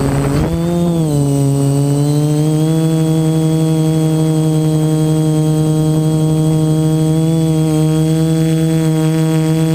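DJI F450 quadcopter's motors and propellers, recorded from a camera on the frame: a loud, steady buzzing hum whose pitch wavers in the first second, then holds as the drone hovers.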